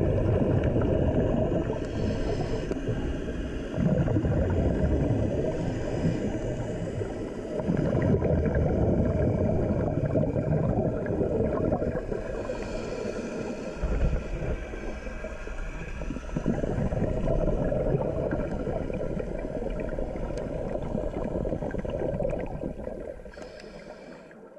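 Muffled underwater noise picked up by a submerged action camera in its waterproof housing: a dense, low rumble of moving water that swells and dips, then fades away near the end.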